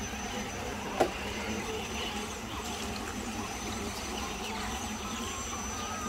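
Electric motor of a radio-controlled rock crawler whining as it drives, its pitch rising near the end, with one sharp click about a second in.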